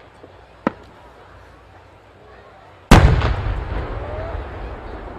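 Fireworks: a short sharp crack under a second in, then a loud aerial shell burst about three seconds in that rumbles and echoes away over the next couple of seconds.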